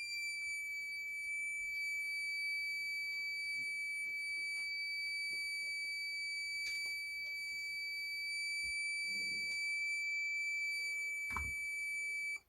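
DIY breathalyser kit's alarm buzzer sounding one continuous high-pitched tone, then cutting off abruptly when switched off. It is a false alarm with no alcohol present, the MQ3 alcohol sensor still warming up after switch-on. A light knock comes shortly before it stops.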